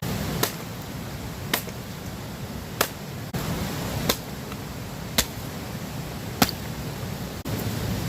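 Hatchet chopping firewood: six sharp strikes, about one every second and a quarter, over a steady rushing background noise.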